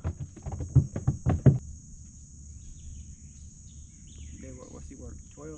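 A quick run of sharp knocks in the first second and a half, then a steady high insect drone over a low rumble, with faint voices near the end.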